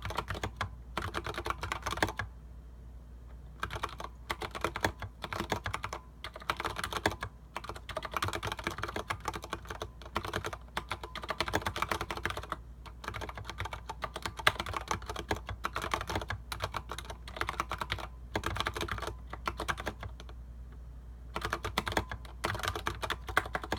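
Typing on a Leopold FC750R PD mechanical keyboard with Cherry MX Clear tactile switches and PBT SA-profile keycaps: rapid runs of keystrokes, broken by short pauses about two seconds in and again near the end.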